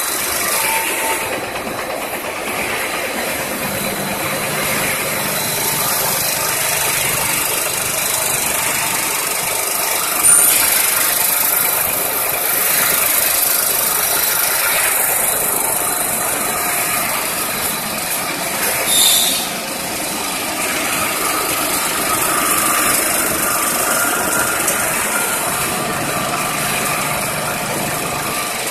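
Fried snack chip production line machinery running: a steady mechanical din with hiss. A brief louder burst of hiss comes about ten seconds in and again around nineteen seconds.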